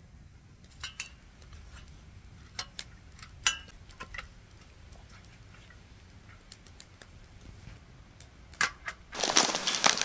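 Wood campfire crackling, with scattered sharp pops spread irregularly through the burning firewood. Near the end, a much louder, steady hiss-like rush of noise cuts in.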